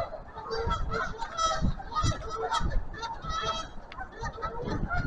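A flock of geese honking, many short calls overlapping one another, with low rumbles underneath.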